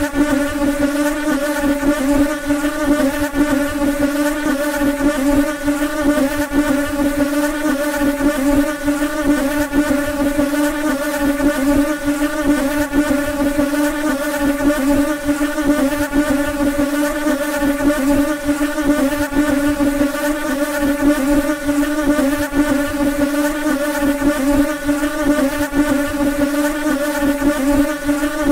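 Housefly buzzing: a steady, unbroken drone that wavers slightly in pitch.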